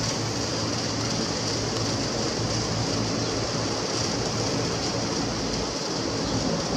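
Steady jet roar of a Boeing 777-300ER's twin turbofans as the airliner passes low overhead on approach, with an even rushing hiss and a faint low hum and no change in level.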